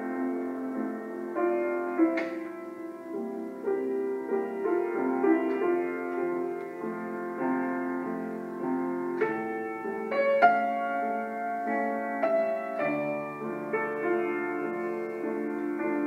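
Background piano music, a slow melody of held notes and chords.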